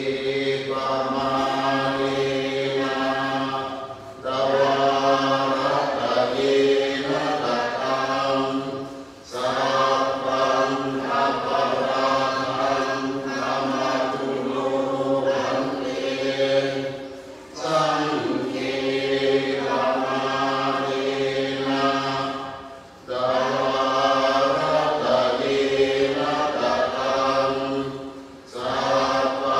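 Buddhist monks chanting Pali verses in unison into a microphone, on a low, steady recitation tone, in long phrases broken by short pauses for breath every few seconds.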